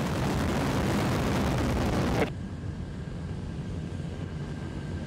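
Terran 1 rocket's first stage climbing under its nine Aeon 1 methane–oxygen engines: a loud, steady rushing noise. A little over two seconds in it cuts abruptly to a quieter, duller rumble with a faint steady tone.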